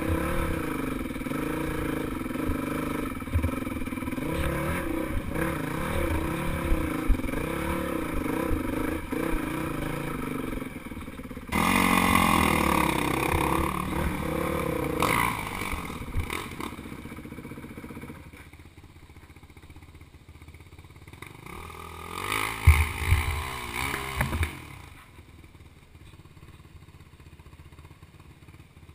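A 450cc four-stroke trail bike's engine revving up and down under changing throttle on a rocky trail, with knocks and clatter from the bike over the rocks. Less than halfway through it gets suddenly louder for a few seconds, then falls to a low idle, with one more short burst of throttle and knocks a little before the end.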